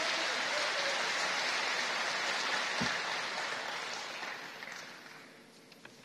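Audience applause from the assembly hall, dying away about five seconds in.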